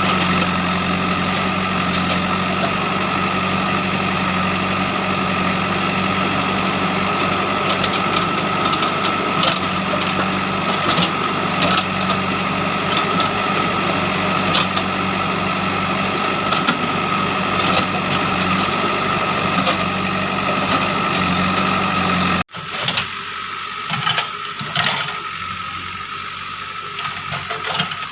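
JCB 3DX backhoe loader's diesel engine running steadily, with scattered metallic knocks from the machine at work. About three-quarters through, the sound cuts suddenly to a quieter take of the running machine, with a few more knocks.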